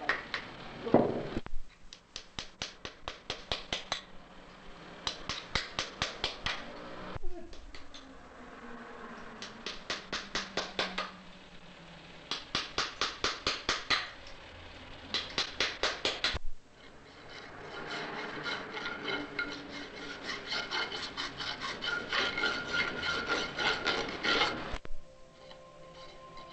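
Farrier's rasp filing a shod horse's hoof, in runs of quick, even strokes of about four a second with short pauses between. A longer, denser run of filing comes near the end.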